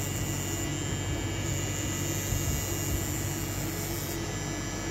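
Pen-style rotary tattoo machine running with a steady, even hum as its needle works into the skin.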